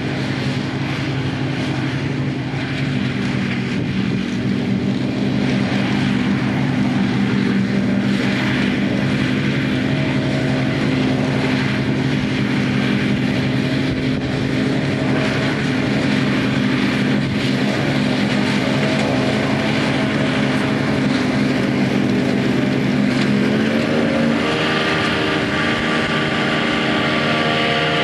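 Diesel engine of heavy harvest machinery running steadily under load, its note stepping up slightly about three-quarters of the way through as the revs rise.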